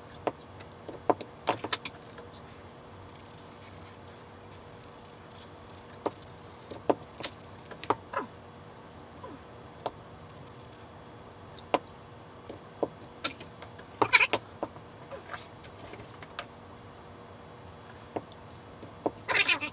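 Glass beer bottles clinking and knocking, with the clacks of a hand bottle capper, as bottles are filled from a bottling wand and capped. A run of high, wavering chirps sounds a few seconds in and again briefly near the middle.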